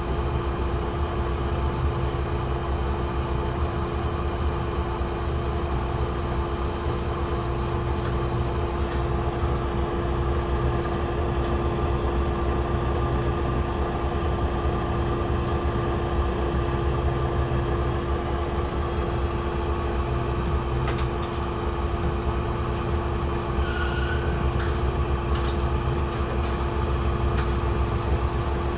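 Mercedes-Benz O560 Intouro bus's diesel engine idling with a steady, even hum while the bus stands at a stop, heard from inside the passenger cabin.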